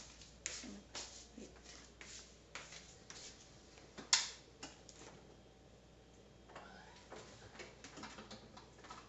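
Irregular light clicks and taps from handling an appliance used to heat water, with one sharp, much louder click about four seconds in.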